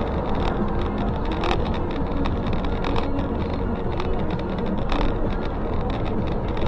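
Steady road and engine noise of a moving car, with many small knocks and rattles through it.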